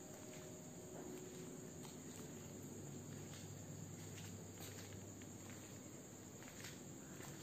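Crickets trilling steadily in one continuous high-pitched shrill, over a faint low hum and scattered soft clicks.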